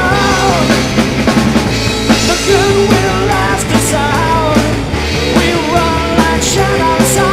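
Live rock band playing a song: electric guitars and drums, with a man singing loudly into the microphone.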